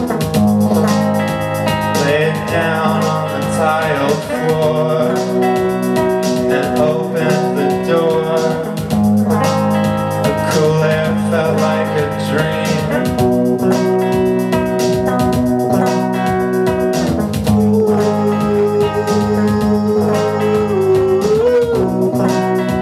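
A band playing live, amplified music: electric guitar and a man's singing voice over a steady beat.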